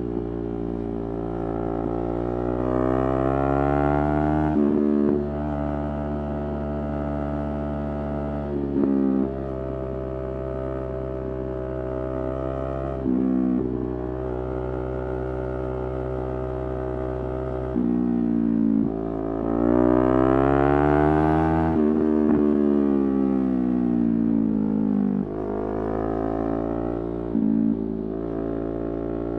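Yamaha R3's parallel-twin engine under way, its revs climbing and falling with short breaks at gear changes several times. There is a steep rise in revs about two-thirds of the way through, then a long fall as it slows.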